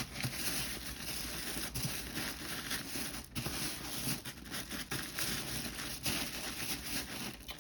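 Tissue paper rustling and crinkling as it is tucked down into a basket by hand, with a couple of small taps along the way.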